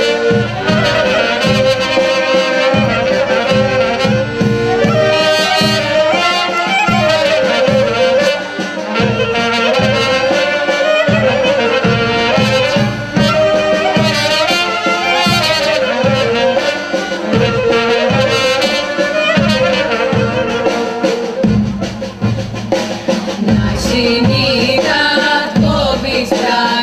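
Live Greek folk band playing an instrumental dance tune: clarinet and brass carry the melody over a steady drum beat.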